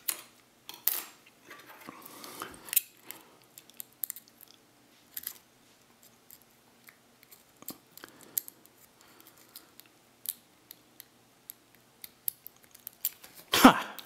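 Small, irregular clicks and scrapes of a lock pick and tension wrench working the spool security pins of a brass Bricard padlock, with a louder click near the end as the lock gives and opens.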